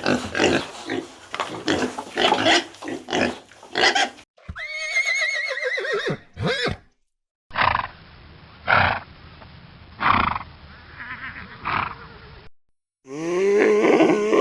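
A run of farm animal calls from different clips: rough grunting at first, then a wavering, falling call about four and a half seconds in, a few short separate cries, and a deeper drawn-out call near the end.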